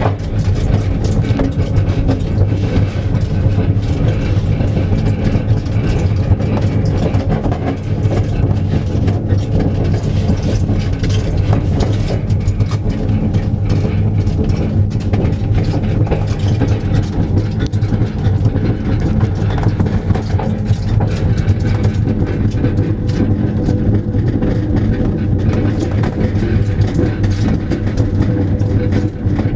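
Steady rumble and rattle of a rear-car trailer rolling along an asphalt road, heard from inside its enclosed box, with a continuous low hum under the rattle.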